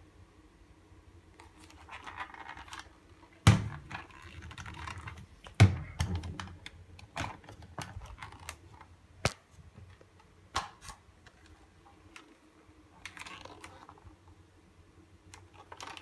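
Handling noise from a plastic hand-held hair dryer being turned over in the hands, not yet running: irregular clicks and knocks with short stretches of rubbing and scratching. The loudest are two sharp knocks, about 3.5 and 5.6 seconds in.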